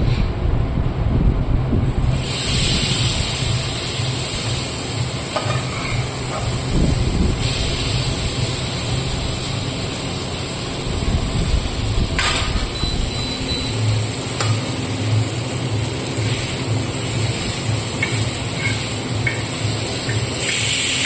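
Banana curry sizzling and hissing in a hot pan, the hiss setting in about two seconds in and running steadily, with a spatula knocking against the pan now and then over a low rumble.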